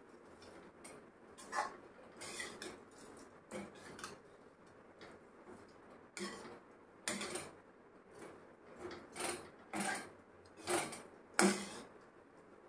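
Steel spatula scraping and knocking against a metal kadhai as crushed dry instant noodles are stirred and roasted, in irregular strokes, the loudest near the end.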